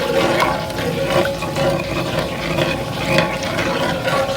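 Orange sauce bubbling in a pan while it is stirred with a spoon, as a cornstarch slurry thickens it; light scrapes and clicks over a steady hum.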